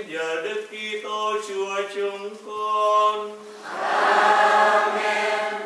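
Church choir singing a hymn during Mass, swelling to a louder, fuller passage over the last couple of seconds.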